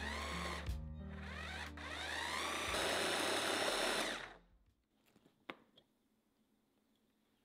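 Electric hand-blender chopper whirring as it grinds ginger, onion and sugar to a purée, its motor pitch rising and falling; it cuts out twice for a moment, then runs steadily and stops about four seconds in. A few light clicks follow.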